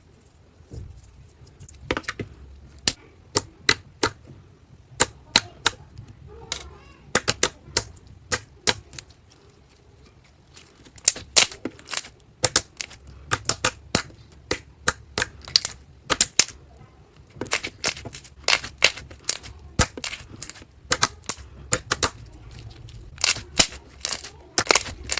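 Slime being pressed and worked by hand, giving irregular runs of sharp clicking pops, several a second.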